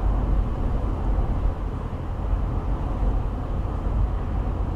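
Steady low rumble of a car being driven, engine and road noise together.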